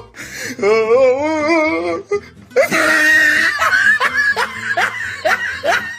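A person laughing hard, in a run of short repeated bursts that grows stronger about halfway through.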